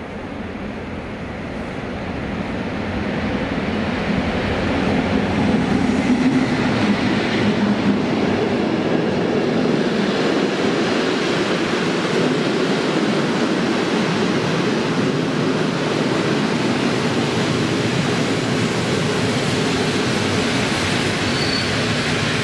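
Electric-locomotive-hauled passenger train running through a station without stopping: the noise grows over the first few seconds as the locomotive approaches, then holds as a steady wheel-on-rail noise while the coaches pass close by.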